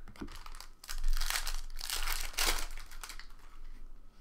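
Plastic trading-card pack wrapper crinkling as it is handled and opened, mostly between about one and three seconds in.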